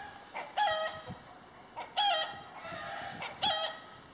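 Chicken calling in the background: three short, pitched calls about a second and a half apart, each dropping in pitch at its end.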